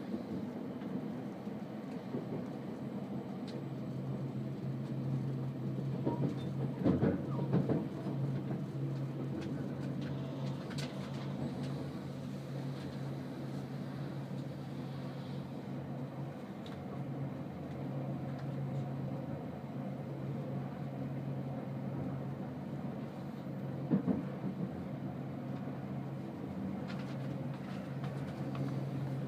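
Cabin noise inside a JR West 287 series electric train running slowly. A steady low hum sets in a few seconds in, with a cluster of louder knocks about a quarter of the way through and another single knock later on.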